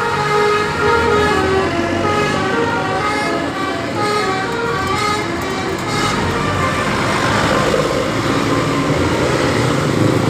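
Bus telolet horn, a Basuri multi-tone musical air horn, playing a quick tune of short notes that jump in pitch. About six seconds in the notes give way to a steady rushing noise.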